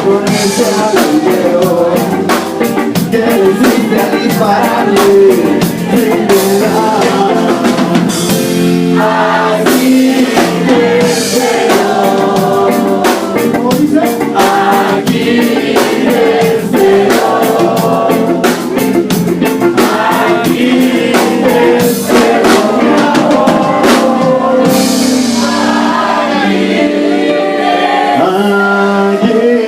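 Live ska band playing, with a voice singing over a driving drum kit and dense instrumental backing.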